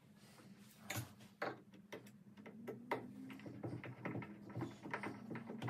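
Irregular light clicks and taps of hand work on a vise screw, as a split wooden retaining collar is fitted and screwed in place on the threaded rod, over a low steady hum.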